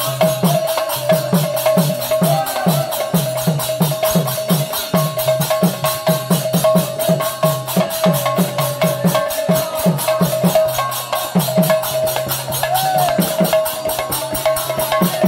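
Folk kirtan music: cane-laced barrel drums played by hand in a fast rhythm, their bass strokes bending down in pitch. Behind them are rapid cymbal ticks and a sustained high drone.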